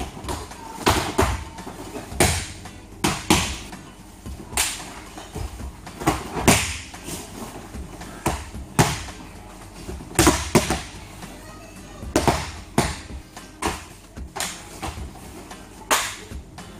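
Bodies slapping and thudding onto a foam judo-style mat, with gi cloth snapping, as aikido throws and breakfalls are performed: about twenty sharp hits at irregular intervals, sometimes two in quick succession.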